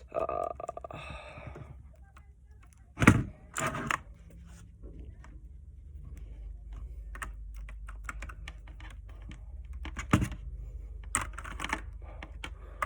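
Scattered clicks and a few louder knocks from a mechanical keyboard with clicky blue switches being handled and pressed while its cable is connected.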